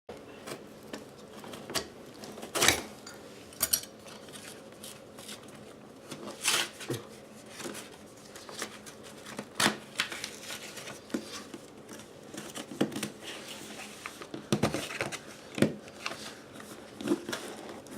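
Irregular clicks, knocks and clatter of hard computer parts being handled and fitted, with about a dozen sharper knocks spread through the stretch.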